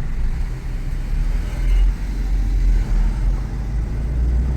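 Honda Civic engine with a rod knock, pulling under load uphill, heard from inside the car as a steady, heavy low drone.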